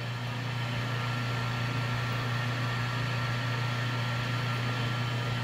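Harbor Freight benchtop wood lathe running at high speed: a steady motor hum with a faint high whine, as wet Zona polishing paper is held against the spinning acrylic pen blank.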